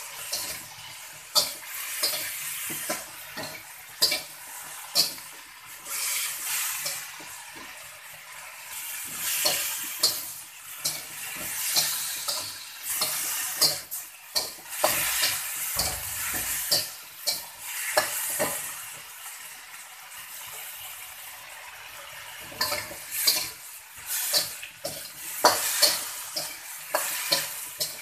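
Bitter gourd stir-frying in a steel wok: the oil sizzles in bouts as the slices are tossed, with repeated scrapes and clinks of a slotted metal spatula against the wok.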